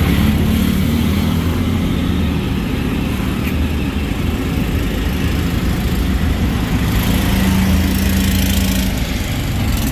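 Motor traffic heard from a moving cycle rickshaw: a steady engine rumble from vehicles close by. A steadier engine hum comes up from about seven to nine seconds in, as an auto-rickshaw runs just ahead.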